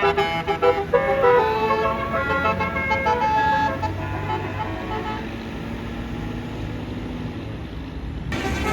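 Multi-tone basuri 'telolet' bus air horn playing a stepping tune for the first few seconds, then the low steady sound of the bus's engine; the horn tune starts again near the end.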